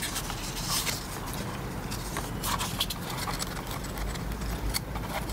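A folded paper leaflet rustling and crackling in a few short bursts as it is unfolded by hand, over a steady low background hum.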